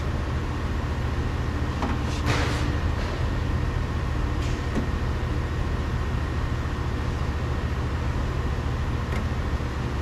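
Steady low hum of shop machinery, with a few short clicks and plastic rattles from unplugging the wiring connectors inside a 2019 Hyundai Santa Fe front door.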